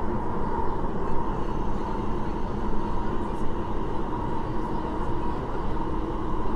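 Kinki Sharyo–Kawasaki electric multiple unit of the Tuen Ma line running at speed, heard from inside the car: a steady rumble and rushing noise with a faint hum held at one pitch.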